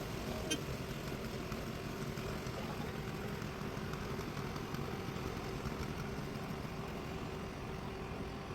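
Truck-mounted concrete boom pump running steadily while pumping concrete, with one sharp click about half a second in.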